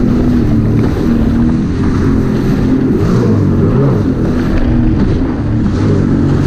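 Jet ski engine running under way at speed, its pitch wavering up and down as the throttle changes, with water spray hissing and wind buffeting the microphone.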